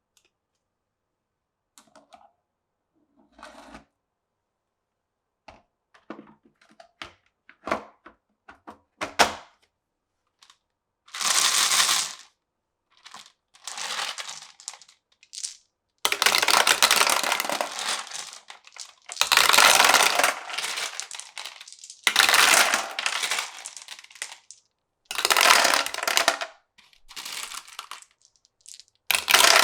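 Glass marbles running down a marble run: a few scattered clicks at first, then a series of loud rolling and clattering rushes, each lasting a second or two.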